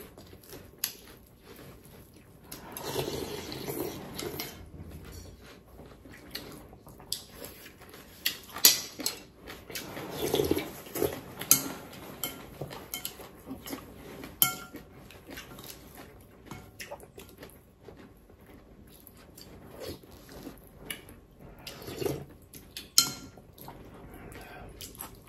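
Metal spoons clinking and scraping against ceramic bowls of porridge as two people eat, with scattered sharp clinks throughout.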